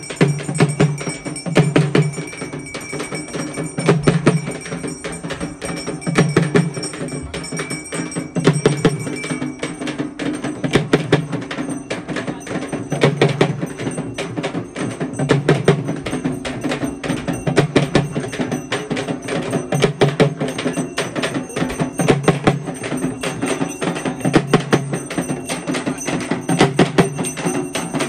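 Music with busy, clicking percussion and a low bass note recurring about every two seconds.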